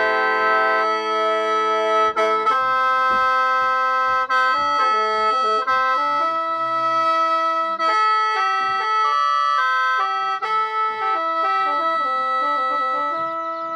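Khaen, the Lao and Isan bamboo free-reed mouth organ, played in the lai noi mode: several reeds sound at once, with held drone notes under a melody whose notes change quickly, busiest in the second half.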